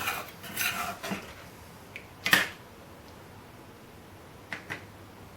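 A spoon scraping and stirring around a pan of curry sauce for about a second, then a single sharp knock a little past two seconds in and two faint clicks near the end.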